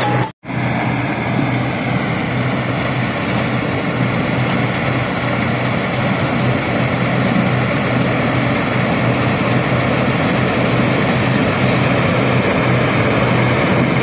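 Combine harvester running steadily as it cuts a rice crop: a continuous engine drone mixed with the noise of its cutting and threshing machinery.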